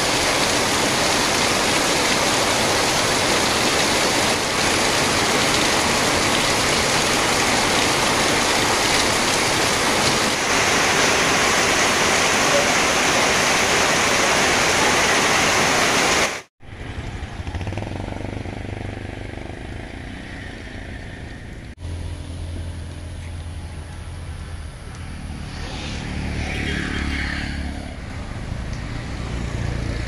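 Heavy rain pouring down, a loud, steady rush of water streaming off a roof edge onto the trees. About sixteen seconds in it cuts off abruptly and is replaced by a quieter, low engine hum that swells and fades.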